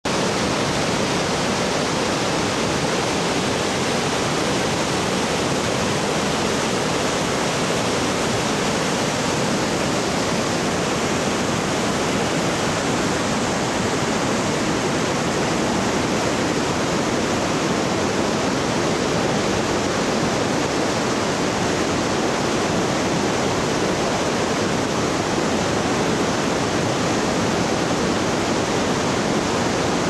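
River rapids: whitewater rushing steadily over boulders.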